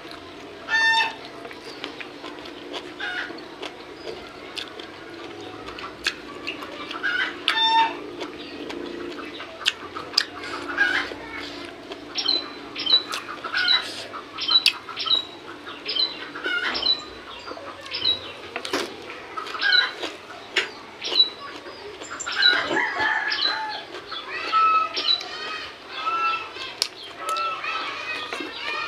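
Domestic chickens clucking, with a run of short high chirps about twice a second partway through, over close-up chewing and mouth sounds from eating by hand.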